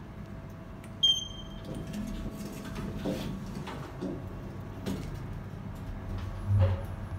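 Kone EcoDisc traction lift car running, a steady low hum inside the car. A short, sharp electronic beep sounds about a second in, and a low thump comes near the end.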